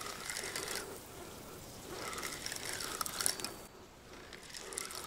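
Spinning reel being cranked in three short spells, its gears whirring and clicking as a hooked fish is reeled in on a bottom rig.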